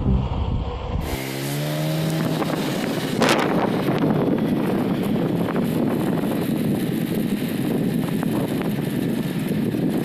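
Music stops about a second in, giving way to a motorcycle engine running as it rides along a road, its pitch rising briefly as it picks up speed, with heavy wind rush on the microphone.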